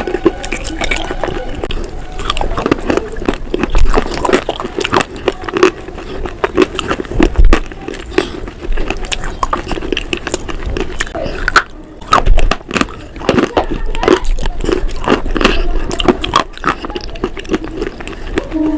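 Close-miked eating sounds: repeated biting and chewing, with many short crisp clicks at an irregular pace.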